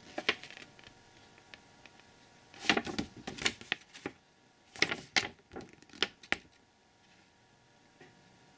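A folded paper deck-list insert being unfolded and handled: crinkling and rustling with sharp paper crackles in short bouts, the loudest about three seconds in and again between about five and six seconds in.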